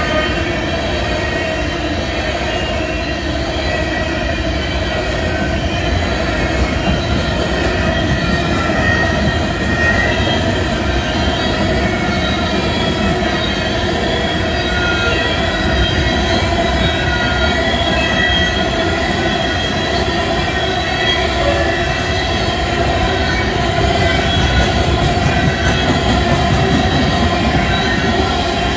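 Freight train of coal hopper cars rolling steadily past: a dense rumble of wheels on rail with several steady high tones above it.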